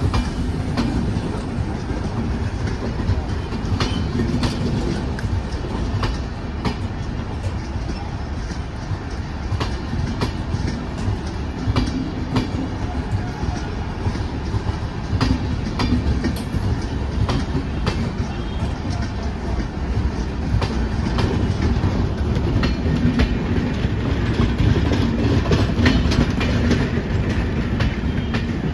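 Indian Railways passenger coaches, a mix of older ICF and newer LHB stock, rolling past close by on a departing express. Wheels clack over the rail joints above a steady rumble, a little louder near the end.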